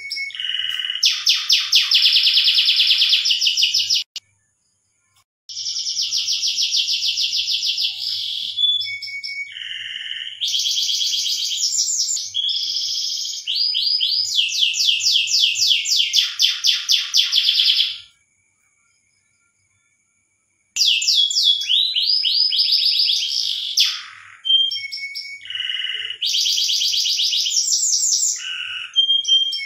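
Domestic canary singing: long runs of fast, rapidly repeated trill notes mixed with short whistled phrases. The song cuts to dead silence twice, briefly about four seconds in and for about three seconds past the middle.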